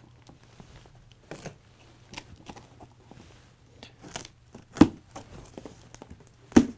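Scissors cutting packing tape on a cardboard box: scattered snips, scrapes and cardboard rustles, with two louder sharp knocks, one about five seconds in and one near the end.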